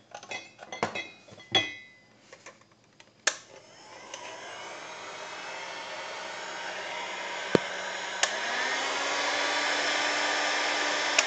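Hammer HG2000A heat gun switched on with a click about three seconds in after some handling clatter; its fan blows steadily, rising in level and pitch over several seconds, and is not deafening. A click comes near the end.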